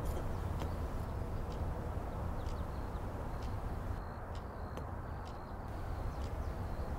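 Faint, sharp ticks about once a second over a steady low drone.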